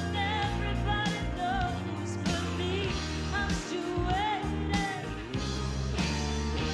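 Country-rock song with a full band: steady bass and drums under a lead melody line that bends and wavers in pitch.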